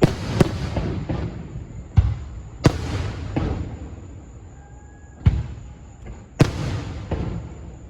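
Fireworks going off outdoors: a series of about six sharp bangs at uneven intervals, each followed by crackling and echo.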